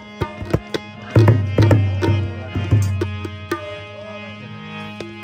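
Background music: hand-drum strokes over a steady drone. The strokes are dense in the first three seconds or so, then thin out, leaving mostly the drone.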